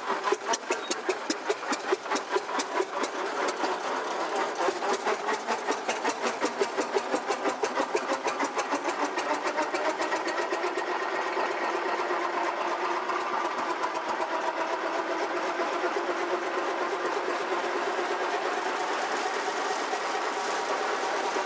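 Early J. I. Case gasoline tractor engine running, its firing beats distinct at first, then picking up speed over the first few seconds and settling into an even clatter.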